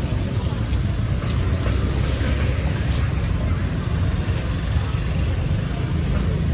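Busy street ambience: a steady low rumble of motor traffic, with indistinct voices of people nearby.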